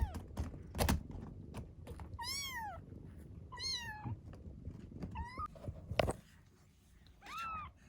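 Kitten mewing: four short, high-pitched mews that rise and fall, spaced a second or more apart, with a couple of sharp knocks between them.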